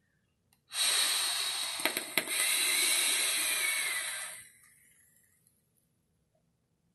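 Hive RTA rebuildable tank atomizer being drawn on hard with its airflow fully open: a steady hiss of air rushing through the tank for about four seconds, with two sharp clicks about two seconds in.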